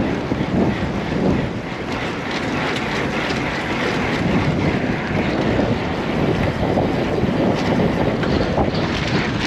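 Wind rushing over the microphone of a camera on a moving road bike, with the hiss of tyres on tarmac mixed in: a steady, loud, noisy rush.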